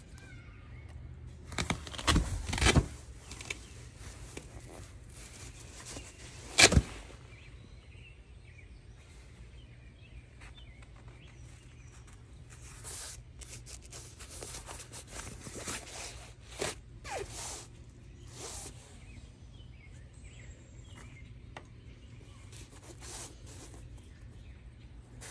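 Handling noises from a fabric puzzle caddy: rustling of its nylon cover and a few sharp clicks and taps, the loudest about seven seconds in, over a steady low hum.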